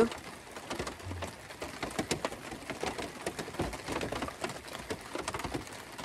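Rain pattering on a truck camper's roof and the tarp over it, heard from inside, with many irregular drop ticks.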